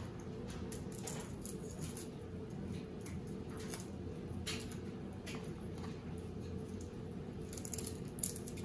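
Papery crackling and rustling of garlic skins being peeled off the cloves by hand, in many small scattered ticks, with a sharper click near the end.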